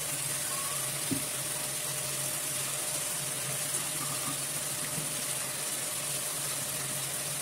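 Steady low electrical hum with a high hiss from an induction cooktop heating a pan of oil, with one faint click about a second in.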